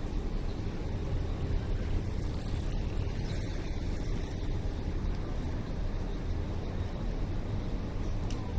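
Steady low rumble of city street ambience, mostly traffic noise.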